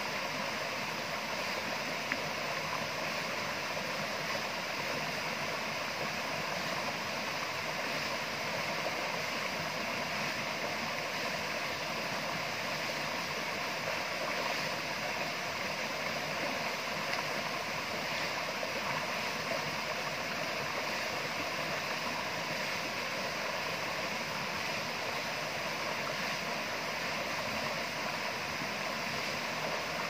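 Shallow rocky stream flowing over a small cascade into a pool: a steady, even rush and splash of water.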